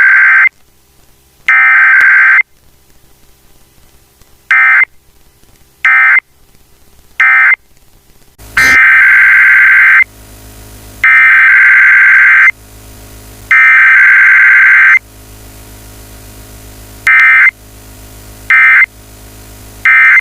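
Emergency Alert System SAME digital data bursts received over FM radio. First come two header bursts, then three short end-of-message bursts. About eight seconds in, the sound cuts to a second station's weekly test, with three longer header bursts and then three short end-of-message bursts over a steady mains hum.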